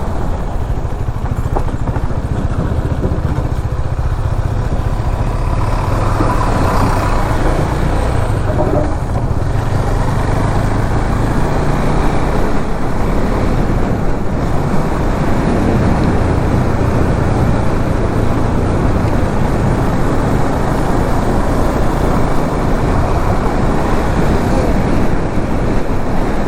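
Motorcycle riding steadily along a road, its engine and road noise a continuous low rumble.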